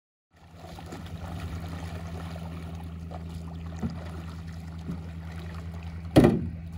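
Paddle strokes and water sloshing around a small aluminum boat over a steady low hum, with faint knocks and one loud thump about six seconds in.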